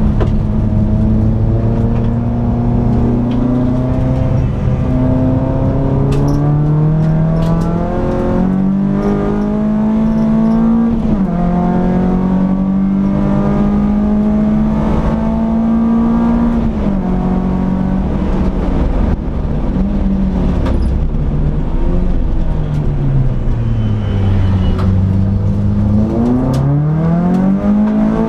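Peugeot 206 S16's 2.0-litre 16-valve four-cylinder engine under hard driving, heard from inside the cabin. The revs climb and then drop sharply at gear changes about 8 and 11 seconds in, sag again later, and climb once more near the end.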